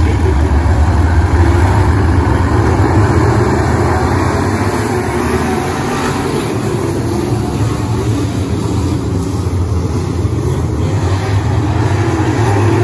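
A field of dirt late model race cars' V8 engines running together around the track: a loud, steady, low drone that eases off slightly midway and builds again near the end.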